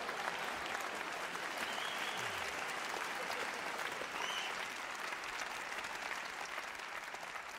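Large theatre audience applauding, the applause gradually dying away near the end.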